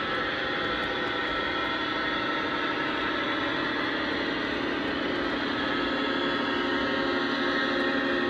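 O-scale model freight train running: MTH Premier spine cars rolling steadily over the track with a constant rumble and hum, growing a little louder toward the end.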